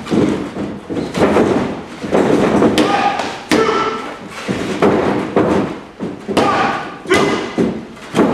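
Irregular thuds of bodies and hands hitting a wrestling ring's canvas mat during grappling, about one a second.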